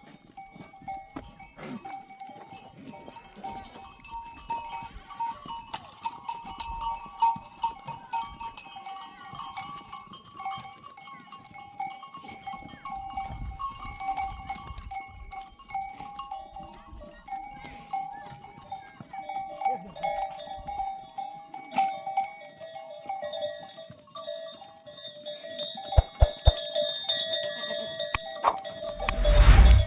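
Bells on a flock of sheep and goats clinking and ringing as the animals move, with a loud thump near the end.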